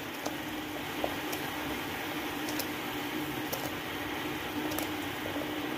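A pot of water at the boil, bubbling steadily while wontons are dropped in, with a steady low hum underneath and a few faint ticks.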